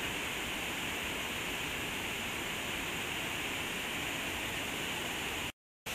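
Steady rushing of a waterfall pouring into a creek pool. The sound drops out to silence for a split second near the end.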